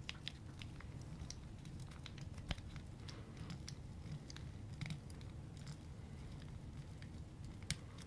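Fidget cube worked close to the microphone: irregular small, sharp clicks, with a louder click about two and a half seconds in and another near the end.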